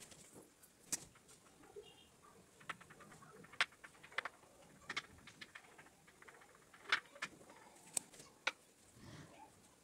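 Kitchen knife tapping on a wooden chopping board while dicing soft paneer: faint, scattered sharp taps at irregular intervals.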